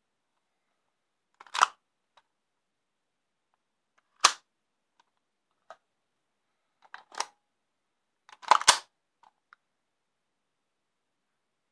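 WE M4A1 gas-blowback airsoft rifle test-firing: four sharp shots a few seconds apart, each with the bolt cycling, the last a quick pair, with faint clicks of the mechanism between.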